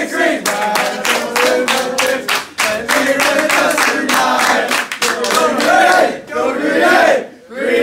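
A group of teenage hockey players clapping in rhythm and singing together, with a short break near the end.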